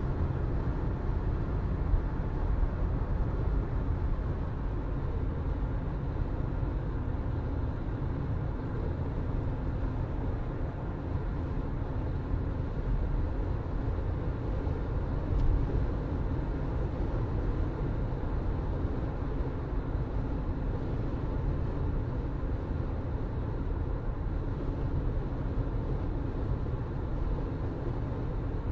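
A car being driven, its engine and tyres making a steady low rumble. There is a single light click just past halfway.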